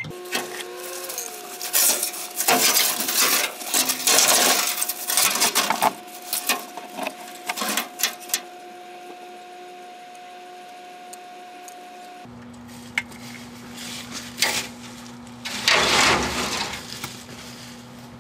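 Microwave oven running with a steady hum, sped up threefold, with bursts of crackling and clicking from about two to eight seconds in and again near the end. The hum drops to a lower pitch about twelve seconds in.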